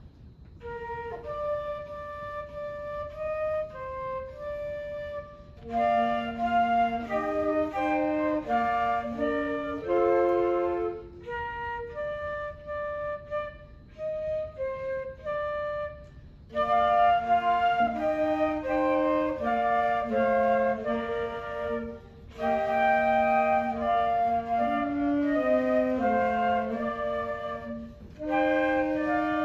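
Small woodwind ensemble, flutes and an alto saxophone among them, playing a sea shanty arrangement. It comes in about a second in and goes in short phrases with brief breaks, alternating thinner passages with fuller ones where all the parts play together.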